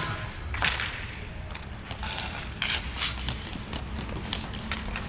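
Roller hockey play: irregular sharp clacks of sticks and puck, over a steady low hum.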